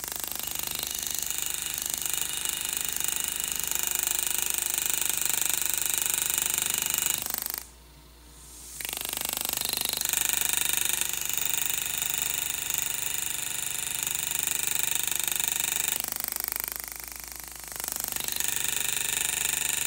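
GRS GraverMax pneumatic handpiece hammering rapidly and steadily, folding the metal walls of a channel (partial bezel) setting down over a diamond center stone. It stops twice, briefly, about seven seconds in and again about sixteen seconds in, then starts up again.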